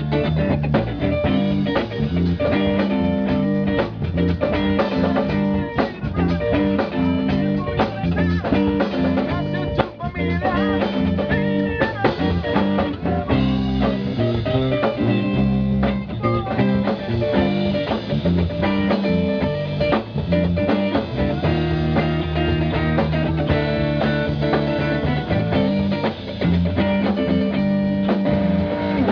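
A rock band rehearsing a song: guitars over a bass line and a drum kit, playing on without a break.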